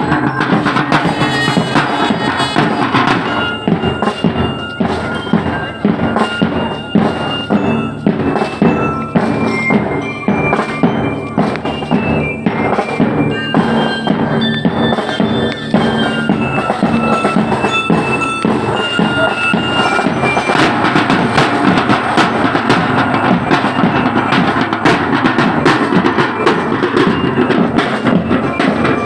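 Marching drum and bugle corps playing on the move: fast drum strokes on paired tenor drums run throughout. A high melody of held notes plays over them for the first two-thirds, then drops out and leaves the drums alone.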